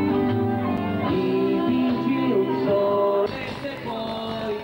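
Backing music with held instrumental notes during a pause in the singing. About three seconds in it cuts off abruptly into a quieter, noisier passage.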